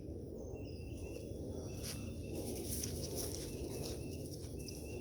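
Faint outdoor ambience: a steady low rumble with short, high bird chirps repeating in the distance and a few light clicks.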